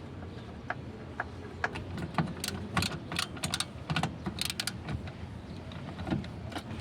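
Hand tools clinking and clicking against metal parts while a pickup's AC components are unbolted and removed: a run of irregular sharp clicks, thickest in the middle, over a low steady hum.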